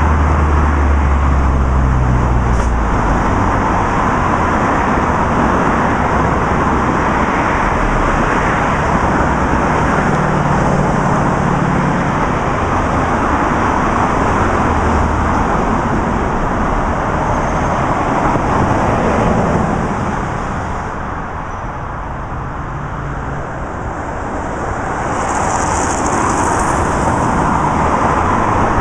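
Steady road-traffic noise, a continuous rumble and hiss that eases for a few seconds about two-thirds of the way through.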